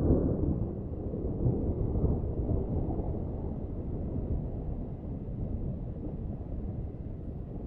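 Rolling thunder rumbling low and deep. It swells early and again about two seconds in, then settles into a fading rumble.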